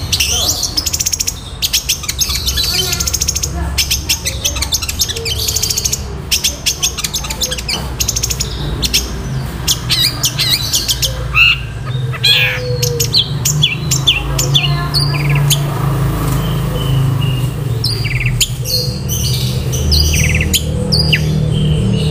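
Long-tailed shrike singing a fast, dense run of rapid clicking notes mixed with short whistled notes and squawks. A steady low hum runs underneath.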